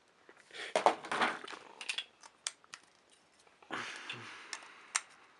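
Wooden and plastic toy train pieces being handled and fitted together: scattered sharp clicks and knocks with brief rustling scuffles in between.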